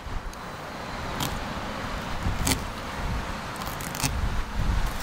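Fillet knife slicing along a walleye's backbone, with a few short clicks as the blade crosses the bones, over a steady low rumble.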